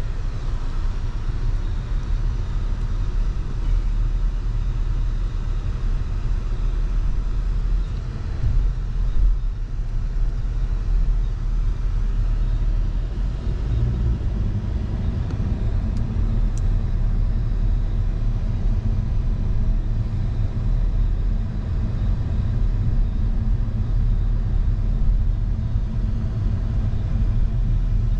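A car driving slowly, its engine and tyres making a steady low rumble.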